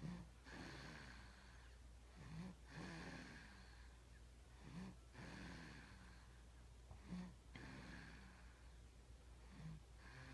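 A sleeping five-and-a-half-month-old baby snoring: slow, even breaths about every two and a half seconds, each with a short low snort.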